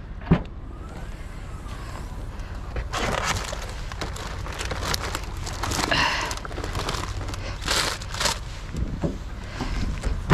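Plastic bags and packaging rustling and crinkling as goods are handled in a dumpster, with a sharp knock just after the start. A low steady rumble runs underneath.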